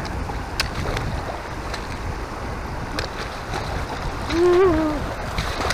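Rushing creek water with splashing and sloshing as boots wade through a shallow mountain creek, with a few sharp splashes or knocks. Late on, a brief wordless vocal exclamation rises and falls over the water.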